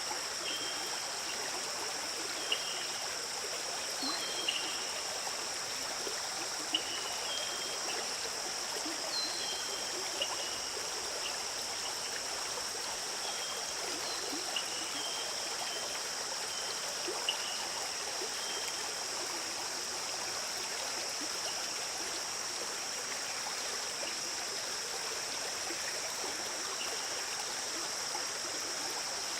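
A stream flowing and trickling steadily, under a constant high-pitched insect hum. Short high chirps come now and then through the first half.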